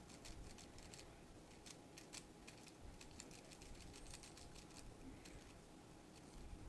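Faint plastic clicking of a Super Weilong V2 speed cube's layers being turned, in quick, irregular turns.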